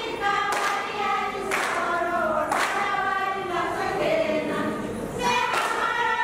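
A Tharu folk dance song: voices singing together in unison, with a sharp beat about once a second that pauses briefly in the middle.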